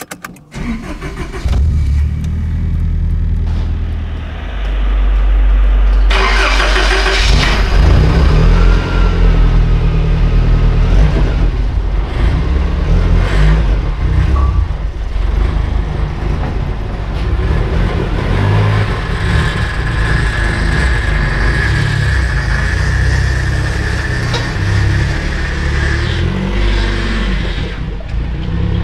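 Nissan Skyline DR30 RS Turbo's FJ20ET turbocharged 2.0-litre inline-four starting up in the first second or so, then running loudly with its revs rising and falling.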